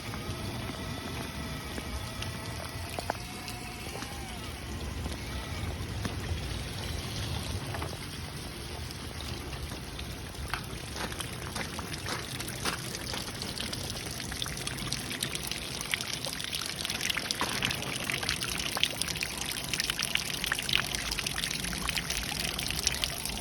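Rain falling, with drops pattering sharply and thickening into a dense patter in the second half. A wavering whine is heard in the first few seconds.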